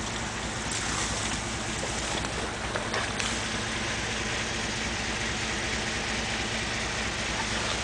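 Truck engine running steadily at idle, a low hum under an even hiss.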